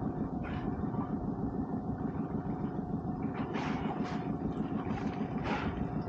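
Small boat's outboard engine idling steadily, with short hissing puffs of dolphins blowing as they surface, several times in the second half.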